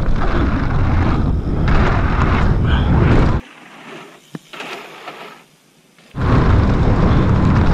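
Loud rumbling wind noise and rolling noise on a mountain biker's action-camera microphone while riding downhill. It cuts out abruptly for about three seconds in the middle, leaving a quieter stretch with one sharp click, then comes back just as loud.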